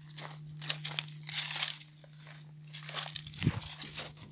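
Footsteps crunching as someone walks around the machine, about two steps a second and uneven, over a steady low hum.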